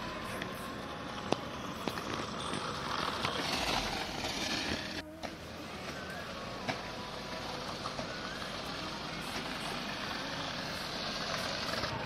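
Steady street traffic noise with a few light clicks, dipping briefly about five seconds in.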